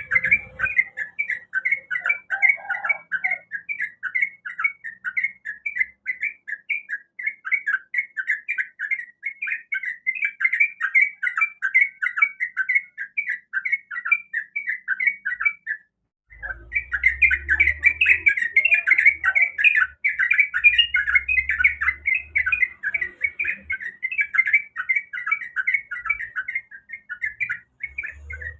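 Yellow-vented bulbul (trucukan) singing in fast, bubbling chattering phrases, note after note with hardly a pause. The song breaks off for a moment about halfway, then resumes more strongly over a faint low rumble.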